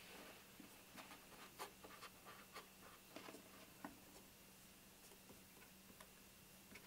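Near silence with faint scrapes and light ticks from hands handling and pressing wooden mold pieces on a wooden workbench, most of them in the first few seconds, over a low steady hum.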